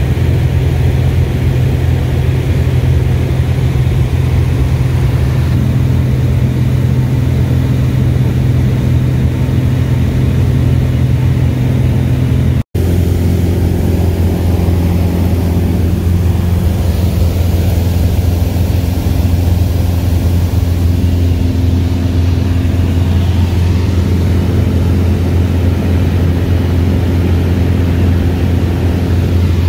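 Single-engine Cessna's piston engine and propeller droning steadily in cruise, heard from inside the cabin. The drone breaks off for an instant about halfway through and comes back pitched slightly lower.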